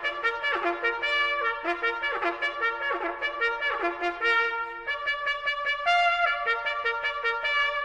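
Trumpet playing a brisk tune of quick short notes, moving to longer held notes about halfway through, as the show's opening theme.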